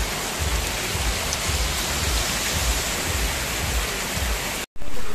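Heavy rain pouring onto a road and puddles, a steady hiss with irregular low rumbling underneath. The sound cuts off abruptly just before the end.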